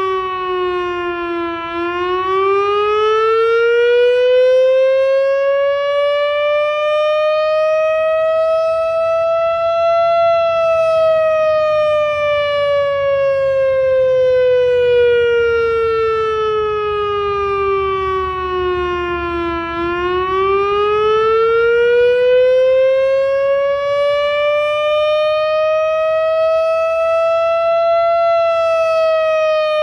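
Loudoun Masterblaster outdoor warning siren sounding a slow wail in a test. The pitch rises for about eight seconds, then falls for about ten, and the cycle repeats twice.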